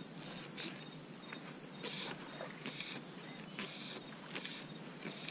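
Insects chirring in a steady high-pitched chorus with a fast, even pulse, under a few faint short noises.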